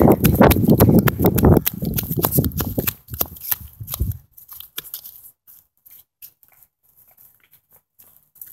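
Someone running with a phone in hand: rapid footfalls and rubbing and knocking of the handset against the microphone, loud for about the first three seconds. After that it dies down to scattered rubs and clicks as the movement stops.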